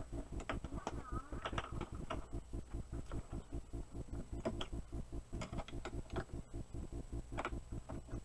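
Hand ratchet clicking in quick repeated strokes as the 1/2-inch bolts holding an ATV winch to its mount are turned out.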